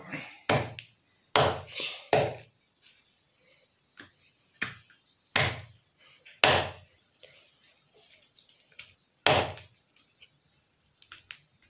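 A large knife chopping chicken on a wooden log chopping block: about seven hard chops at irregular intervals, with pauses between some of them.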